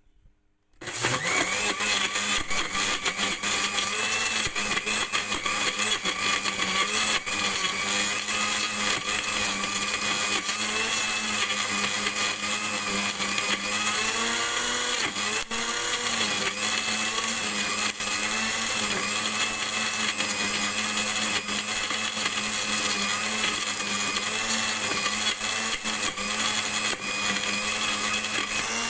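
Electric kitchen blender switched on about a second in and running steadily under load, blending dates into a drink.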